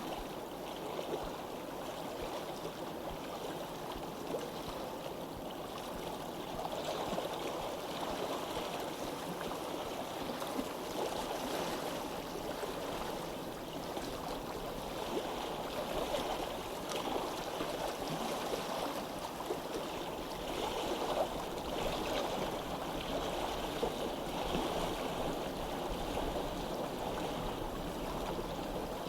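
A stream flowing, a steady continuous rush of running water.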